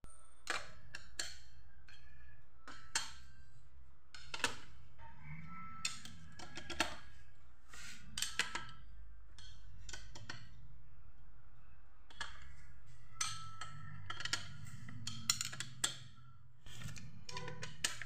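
Irregular metallic clicks and clinks of a socket wrench and long steel extension bar knocking against engine parts as it is worked by hand. Some of the knocks ring briefly.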